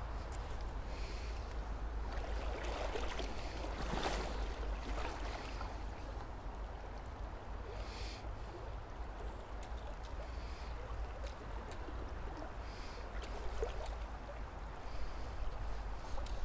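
Shallow river running over a stony riffle: a steady rush of water with a low rumble underneath, briefly louder about four seconds in.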